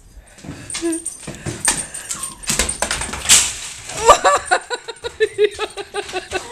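A Labrador's claws clattering and scrabbling on a vinyl kitchen floor as it chases a thrown tennis ball and skids, with sharp knocks among the clicks. From about four seconds in comes a quick run of short high-pitched cries, about four a second.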